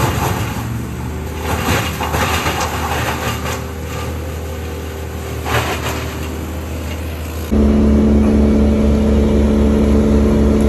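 Diesel machinery running at a tree-removal job: the Schaffer mini loader's engine working, with scattered cracks and knocks of brush being handled. About seven and a half seconds in, the sound switches abruptly to a louder, steady engine with an even hum from the grapple loader's cab.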